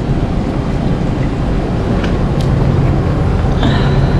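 Strong wind buffeting the microphone: a steady loud rumble, with a faint steady hum underneath in the second half.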